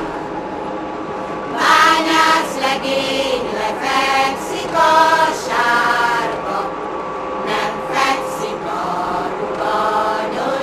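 A choir singing, in long held notes, continuing a Hungarian miners' folk song.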